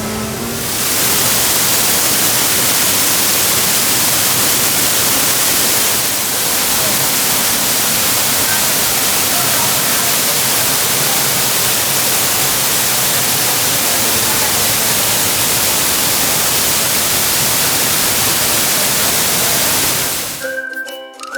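Loud, steady rush of falling water from a waterfall close by, cutting off suddenly near the end as music takes over.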